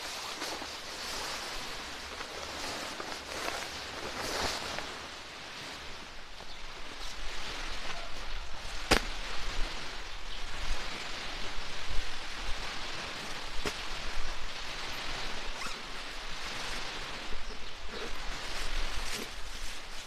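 A tarp groundsheet rustling and crinkling as it is shaken out and spread, then a tent and its stuff sack being handled and unpacked on it, with scattered small crackles and one sharp click about nine seconds in.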